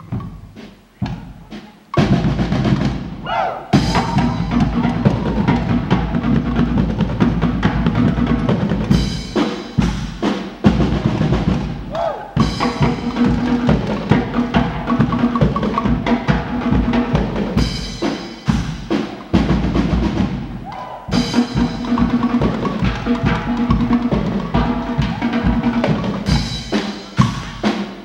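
Guggenmusik brass-and-drum band playing loudly: trumpets, trombones and sousaphone over bass drum and snare. A few sharp clicks come first, and the full band comes in about two seconds in.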